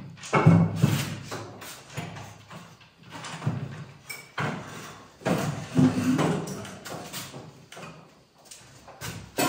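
Wooden stepladder knocking and clattering against the floor and wall as it is handled, folded and set up: a string of irregular hollow wooden knocks with a short echo.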